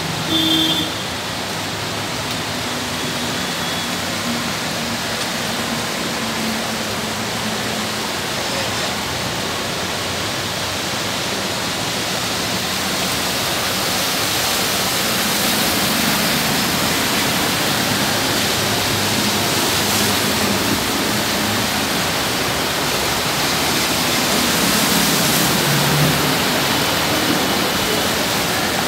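Steady rushing hiss of water on a flooded street, as cars and auto-rickshaws splash through the floodwater. A brief tone sounds about half a second in.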